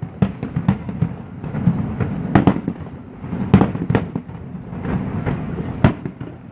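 Aerial fireworks bursting: a string of sharp bangs at irregular intervals over a continuous low rumble, the loudest bangs coming about two and a half, three and a half, four and six seconds in.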